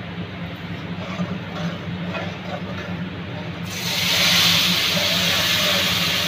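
Roasted semolina and ghee sizzling softly in a hot aluminium karahi over a steady low hum. After about three and a half seconds, milk is poured into the hot pan and it breaks at once into a loud, steamy hiss.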